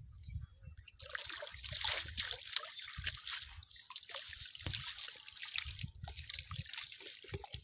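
Water splashing and trickling off a wet cast net as it is lifted and dipped in a pond, starting about a second in and continuing in a busy patter of splashes.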